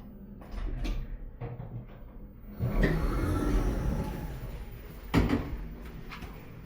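ThyssenKrupp elevator doors sliding, with a rush of noise a few seconds in and a sharp knock about five seconds in as the door panels reach their stop.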